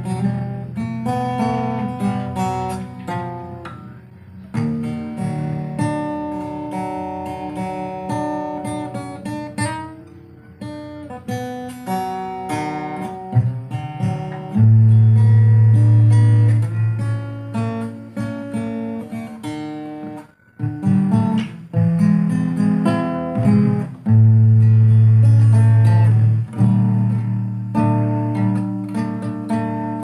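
Instrumental background music: a melody of picked notes over deeper bass notes. The bass notes become loud about halfway through and again near the end.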